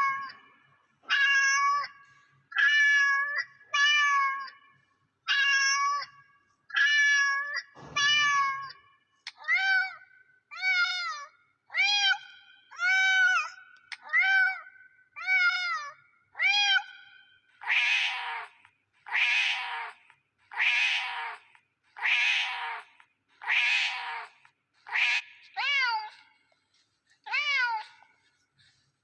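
Domestic cat meowing over and over, about twenty meows with short silent gaps, roughly one every second and a half. The first meows are short and level in pitch, the middle ones rise and fall, and from about eighteen seconds in they turn hoarse and raspy.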